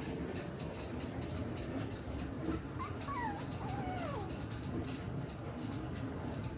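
Yorkshire terrier whimpering: a short run of thin, high whines about three seconds in, wavering up and down, the last sliding down in pitch.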